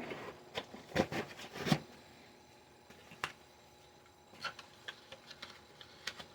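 Scattered clicks, taps and light knocks of small objects being handled, busiest in the first two seconds, with a few sharper ticks later.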